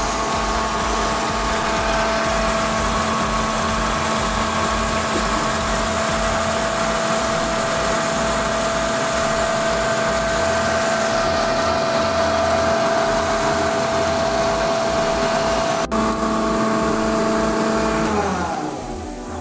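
Airman screw air compressor running unloaded, a steady hum with a whine in several tones. A sharp click comes a little before the end, and then the compressor stops: its whine falls in pitch as the motor winds down.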